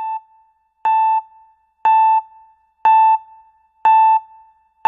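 Countdown timer sound effect: a short electronic beep about once a second, each with a sharp click at its start.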